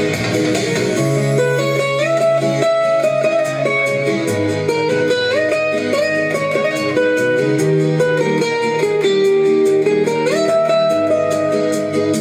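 Instrumental break of a song: a guitar-led melody with notes that slide up and down, over a plucked accompaniment and a moving bass line.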